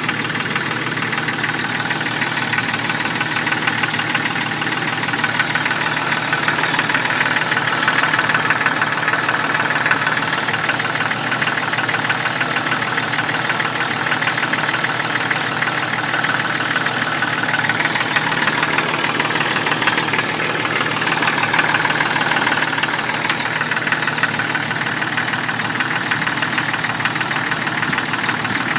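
1996 Jeep Cherokee's 4.0 inline-six engine running steadily with a rapid, regular knock, which the owner thinks comes from inside the oil pan; it could be a lifter, rod or bearing knock.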